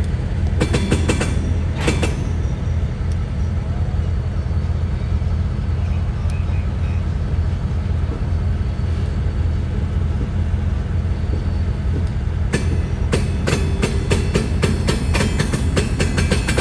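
Freight train cars rolling slowly on the rails over a steady low diesel locomotive rumble, with a few wheel clicks a second or two in and a quick run of clicking and clacking over rail joints in the last four seconds.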